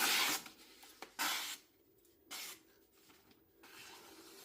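Japanese carbon steel knife blade making three short rasping strokes, the first the loudest and the later ones shorter and fainter.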